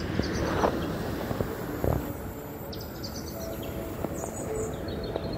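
Steady rush of surf and wind, with a few short knocks from handling the fishing rod and faint high chirping.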